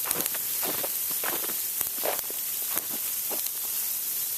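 Heavy sleet falling: a steady hiss of ice pellets striking snow and hard surfaces, with scattered sharper ticks of individual pellets.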